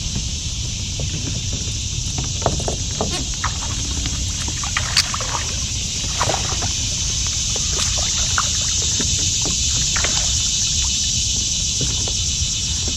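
Scattered light knocks and splashes of water around a kayak, over a steady high-pitched hiss and a low rumble.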